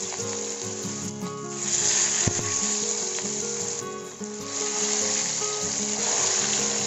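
Katla fish pieces sizzling in hot mustard oil in a frying pan, the crackling hiss swelling louder twice as more pieces are laid into the oil. A single light knock of the spatula comes a little past two seconds in.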